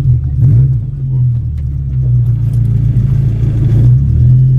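Mitsubishi Galant's engine running as the car drives slowly, heard from inside the cabin: a loud, steady low drone that wavers slightly in pitch.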